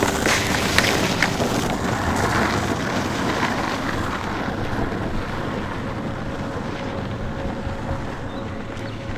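Wind buffeting the microphone over a steady rolling rumble, with a few sharp clicks in the first couple of seconds; the noise eases off slowly.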